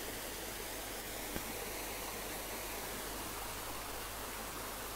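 Steady, even hiss of background noise, with one faint click about a second and a half in.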